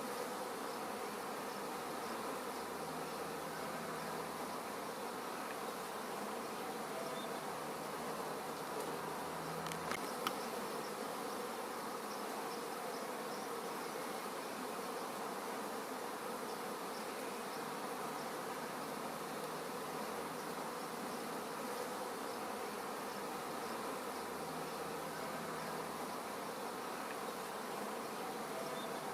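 Steady buzzing drone that holds unchanged throughout, with a single short click about ten seconds in.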